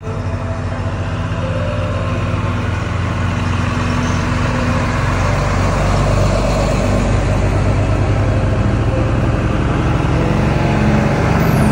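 Engines of slammed vintage trucks rolling slowly past one after another, a steady low rumble that grows gradually louder.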